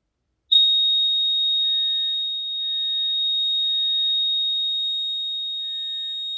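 Apartment fire alarm sounder, set off by the sprinkler water-flow test, starting about half a second in with a loud, steady, high-pitched continuous tone.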